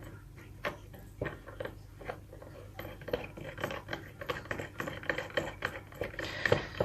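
Light clicks and rubbing of small metal pressure-washer fittings, a quick-release adapter and connectors, being handled.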